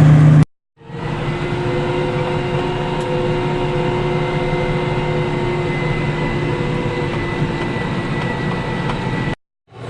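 Combine harvester running steadily as it cuts wheat: a constant machine drone with several steady whining tones over it. The sound cuts out briefly about half a second in and again near the end.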